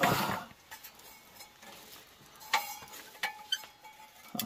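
Old boxes and objects being rummaged through on a shelf: a rustling scrape at the start, then scattered light clinks and knocks as items are moved.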